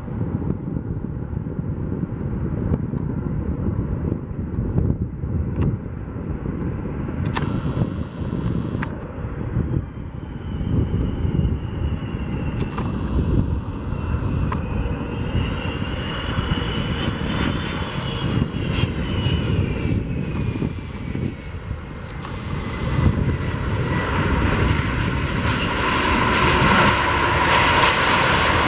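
Airbus A330-200's twin Pratt & Whitney PW4000 turbofans on final approach: a steady jet rumble with a whine that rises, then slides down in pitch over several seconds. It grows louder near the end as the airliner comes close over the runway.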